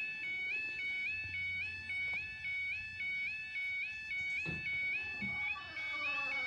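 Level crossing warning alarm (yodalarm) sounding a continuous, rapidly alternating high two-tone warble as the crossing closes for a train. About four and a half seconds in there is a short knock, and from about five and a half seconds a lower wavering hum joins as the barriers begin to lower.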